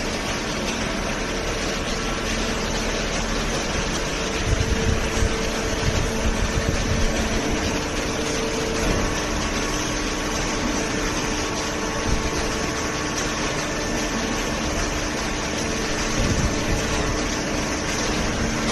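Hydraulic baler running with a steady mechanical hum of its pump and motor, with bursts of low knocking and rumbling about four to seven seconds in and again later.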